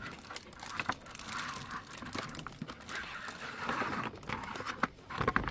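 Plastic play-kitchen parts being handled and fitted together: rustling and crinkling, with scattered light clicks and a cluster of sharper clicks near the end.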